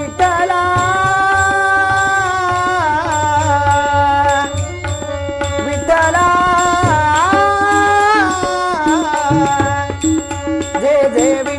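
Marathi devotional singing: a male voice sings a Vitthal abhang in long, gliding held notes over a harmonium, with a hand drum and small brass hand cymbals keeping the beat.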